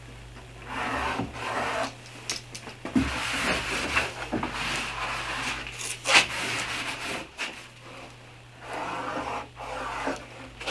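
Cloth rag rubbing in repeated strokes over a freshly glued, clamped pine board panel, wiping down the glued seams. There is a sharp knock about six seconds in.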